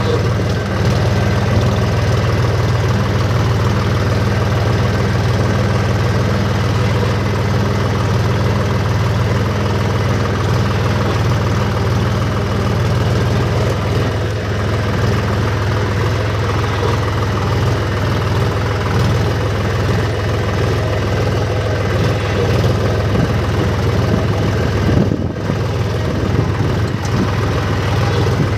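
HMT 5022 tractor's diesel engine running steadily under way, heard from the driver's seat with a strong low hum.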